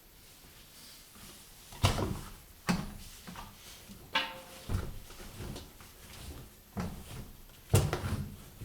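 Washing machine being handled: a series of sharp clunks and knocks, the loudest about two, three and eight seconds in, with a brief squeak about halfway through.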